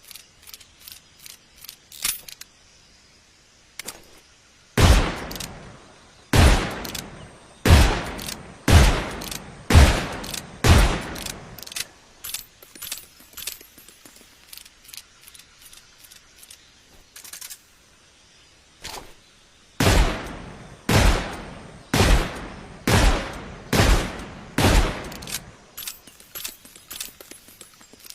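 Colt single-action revolver fired six times about a second apart, each shot trailing off in a ringing echo, then a stretch of light metallic clicks, then six more shots at the same pace and more clicks near the end.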